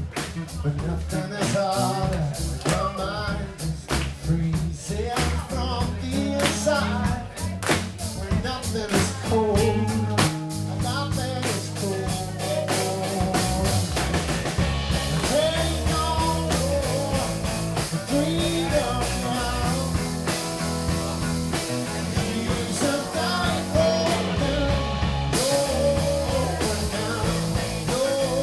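A rock band playing live: a singing voice over a steady beat, with a sustained low bass line underneath.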